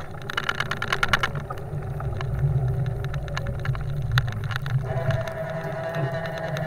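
Golf car running steadily while pushing snow with a front-mounted plow blade, with clicks and rattles as the blade scrapes along the pavement. A steady whine comes in about five seconds in.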